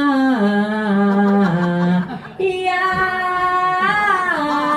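A woman singing the word '이야' alone, with no accompaniment. A held note steps down in pitch twice and stops about two seconds in. After a short breath a second phrase starts, with a bend in the pitch near the end.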